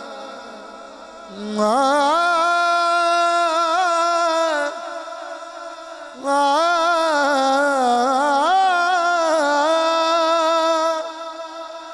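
A man sings a devotional Punjabi manqabat into a microphone, holding long, wavering notes. A phrase starts about a second and a half in and a longer one about six seconds in, with short pauses between them.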